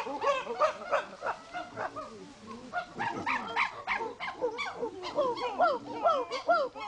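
Several chimpanzees calling together: a rapid run of short hoots, each rising and falling in pitch, overlapping one another. The calls thin out briefly about two seconds in, then pick up again.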